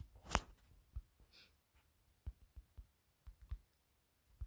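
Fingertips tapping a smartphone's touchscreen: a handful of faint, irregular clicks, the strongest about a third of a second in.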